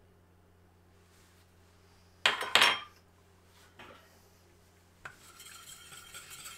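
Metal kitchenware clinking: a quick cluster of sharp clinks with a short ring a little over two seconds in, a fainter knock a second later, then a click and a low steady rustle from about five seconds.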